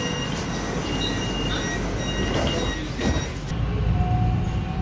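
MRT metro train running between stations, heard from inside the carriage: a steady rumble with thin high-pitched tones coming and going. About three and a half seconds in, the rumble turns lower and heavier.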